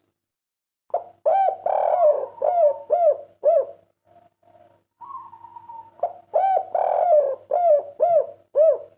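Spotted dove (tekukur/derkuku) cooing in the 'kuk 3' song style, two phrases, each a run of five or six short, arched coos.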